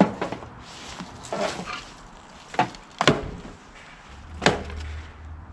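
A series of sharp knocks and clunks from hands working on a Craftsman LT1000 lawn tractor's engine and its parts, with softer handling noise between them. A low steady hum starts about four seconds in.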